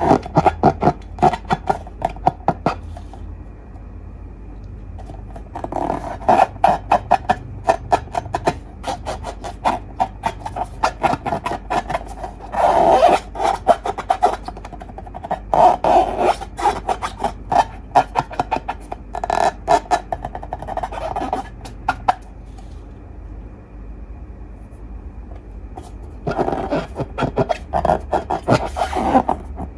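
Slime being squished and worked by hand: bursts of rapid sticky clicks and crackles, with quieter pauses about 3 seconds in and again about 22 seconds in.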